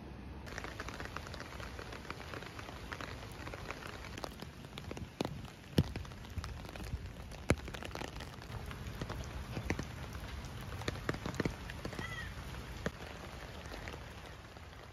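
Steady rain falling on pavement, with a scatter of sharp taps from drops striking an umbrella overhead.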